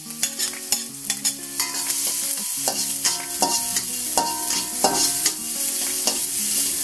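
Minced garlic sizzling as it is sautéed in a little oil in an aluminium wok, with a metal spatula scraping and clinking against the pan many times as it is stirred.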